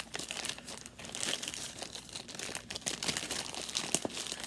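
Mail packaging being handled and pulled open, with continuous crinkling and crackling and bits of tearing.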